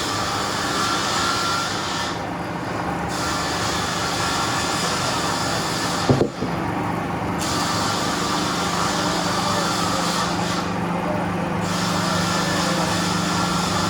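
Veneer peeling lathe running: a steady motor hum under a hiss that drops out briefly about every four seconds, with one sharp knock about six seconds in.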